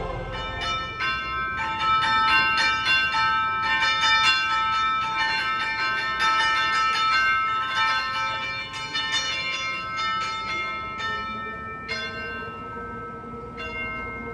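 Bells ringing a rapid peal of many overlapping struck notes that thin out and fade over the last few seconds, with a held lower note coming in near the end.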